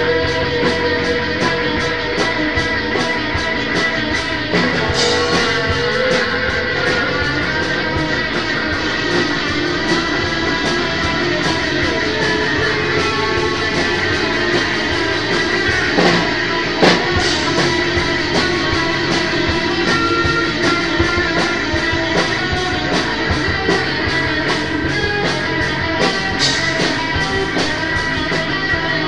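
Dense improvised instrumental music with guitar-like plucked strings, held tones and a steady scatter of short clicks and hits, running without a break.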